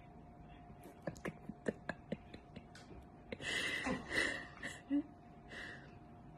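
A Bengal cat scratching its neck with a hind paw: a run of soft ticks, then bursts of scratchy rustling as the claws rake through its fur.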